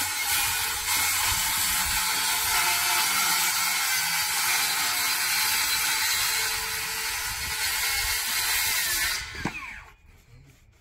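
A steady, hissing machine noise runs for about nine seconds, then cuts off suddenly.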